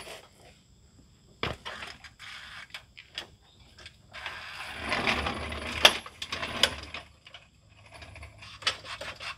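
Scattered metallic clicks and clatter from work with a long metal bar, with a stretch of scraping and rattling about four seconds in, broken by two sharp clinks.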